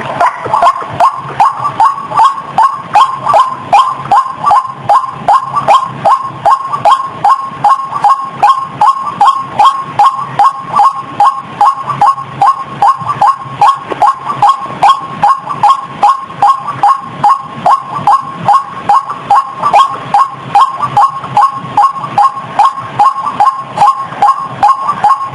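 White-breasted waterhen calling: one short, harsh note repeated about twice a second in a steady, unbroken series.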